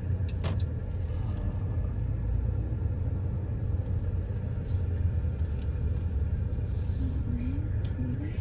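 Low, steady rumble of a car heard from inside the cabin as it rolls slowly across a parking lot, with a single click about half a second in.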